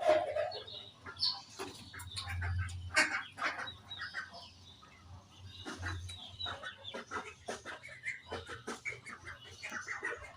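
Budgerigars chirping and chattering: a dense run of short, rapid calls overlapping one another.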